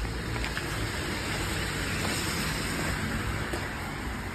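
Passing road traffic: a vehicle's noise hiss swells about two seconds in and fades again.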